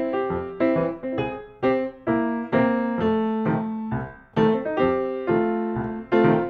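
Background music: a light piano melody of single struck notes, about two a second.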